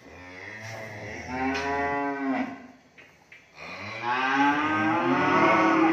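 Cattle mooing: two long moos, each rising and then falling in pitch, the second starting about three and a half seconds in.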